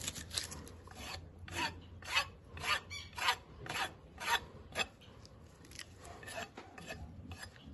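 Steel hoof rasp filing a ewe's hoof, trimming the horn: rhythmic scraping strokes about two a second, fainter after about five seconds.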